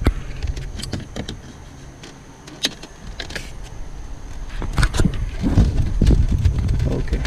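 Hand work on a car door clip as its two sides are squeezed and it is worked free: scattered clicks and knocks, with heavier rubbing and knocking from about halfway through.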